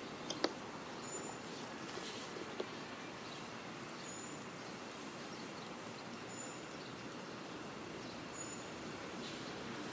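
Steady outdoor ambience with a short, high chirp recurring about every two seconds and a couple of sharp clicks about half a second in.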